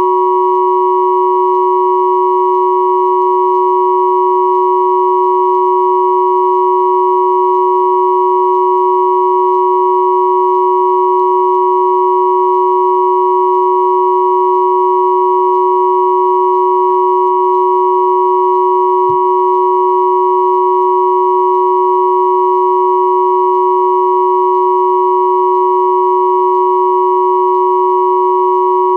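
Electronic sine tones at 369, 963 and 1111 Hz sounding together as one steady, unchanging chord, with fainter higher tones above them.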